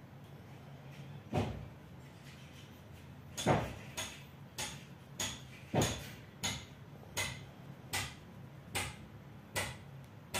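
Cotton swab rubbed hard across a laptop's processor chip to scrub off old thermal paste. It makes about a dozen short scrubbing strokes, a couple at first and then a steady one every half second to second from about three seconds in.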